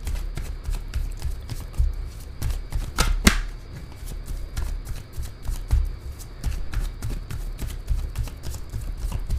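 A deck of tarot cards being shuffled by hand: a quick, continuous run of card flicks and soft taps, with two sharper snaps about three seconds in.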